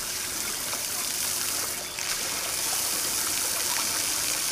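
Steady rushing of flowing water, like a stream or running water.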